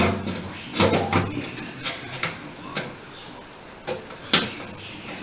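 Scattered knocks and clunks of a vent hood's fan assembly being handled and fitted into place, a cluster about a second in and a sharp knock near the end, the loudest.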